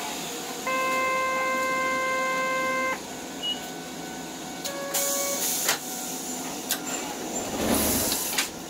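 Electronic warning tone inside a tram: a steady buzzer note of about two seconds, then a shorter beep about two seconds later, a few sharp clicks, and a brief hiss of air near the end.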